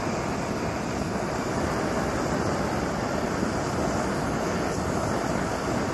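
MSR Pocket Rocket 2 canister stove burning, a steady rushing hiss from the gas flame as it heats a kettle of water.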